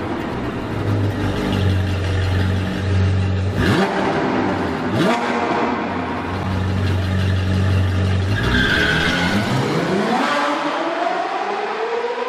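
Sports car engine revving, its pitch sweeping up sharply twice about four and five seconds in and climbing in a longer rise near the end, over a steady low drone.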